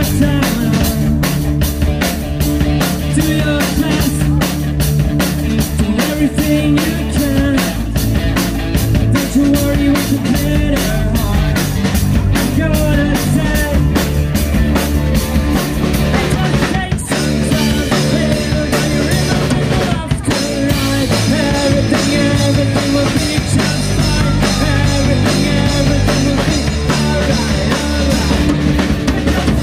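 A live rock band playing loud through a PA: electric guitars, bass guitar and drum kit, with a singer at the microphone. A fast, even drum beat carries the first half; about halfway through there is a brief break and the band continues with a changed beat.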